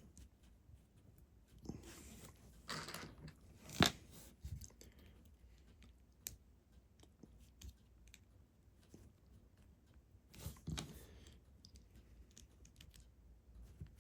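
Small plastic Lego pieces being handled and pressed together: scattered faint clicks and rustling, with the sharpest click about four seconds in.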